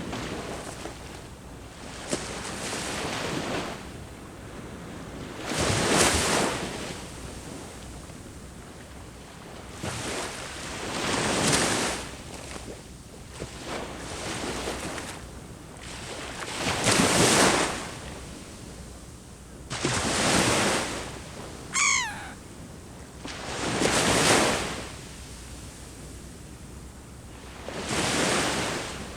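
Sea waves breaking on the shore, each surge swelling and fading every four to six seconds over a steady hiss. About two-thirds of the way through, a bird gives one short call that falls quickly in pitch.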